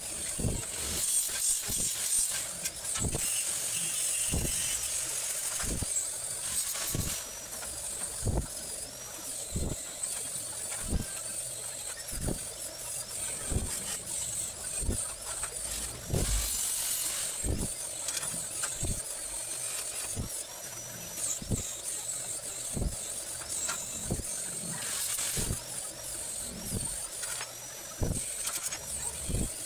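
Stick (arc) welding on steel tubing: the arc hisses and crackles, louder and softer as it goes, with short dull thuds about every second.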